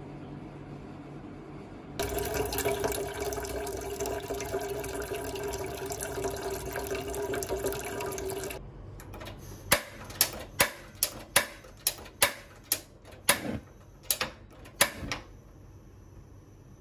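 Tap water running into a stainless steel saucepan in a sink for about six seconds. Then a gas hob's spark igniter clicks about a dozen times, roughly twice a second, until the burner lights.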